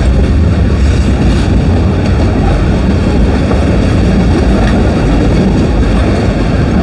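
Freight cars (tank cars, boxcars and covered hoppers) rolling past close by: a steady, loud, low rumble of steel wheels on rail.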